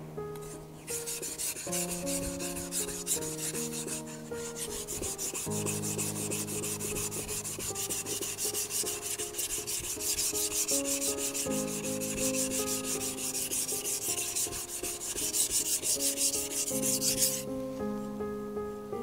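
Warikomi santoku kitchen knife stroked back and forth on a wet whetstone: a continuous rasping scrape of steel on stone that starts about a second in and stops near the end. Soft background music plays underneath.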